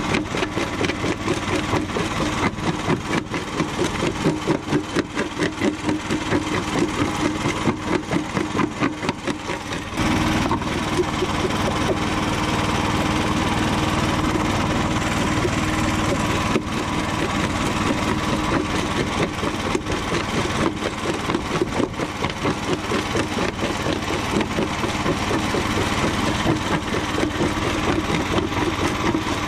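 Homemade jaw crusher running and crushing chunks of concrete, its powered jaw cycling in a fast rhythmic pulse with crunching and cracking of the concrete. About ten seconds in the sound turns steadier and a little louder for several seconds, then the pulsing returns.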